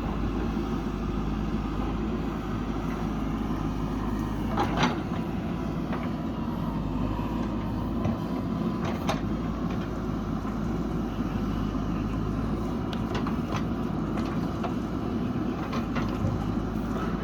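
Backhoe engine running steadily under working load, with a few sharp clanks, the loudest about five seconds in, another about nine seconds in and several fainter ones near the end.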